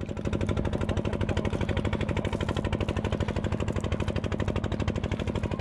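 Small boat engine running steadily at low revs, a fast, even putter.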